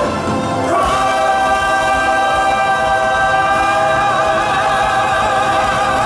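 Live musical-theatre number: a male lead voice and the ensemble choir holding a long sung note with a slight vibrato over the backing music.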